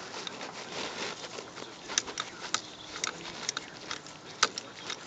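A socket and nut clicking and tapping against the ignition coil mounting as the nut is worked into the socket: a series of short, sharp, irregular clicks, the loudest about four and a half seconds in.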